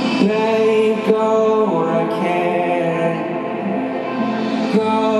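Live pop concert music played over an arena PA: slow, sustained chords whose notes change every second or two.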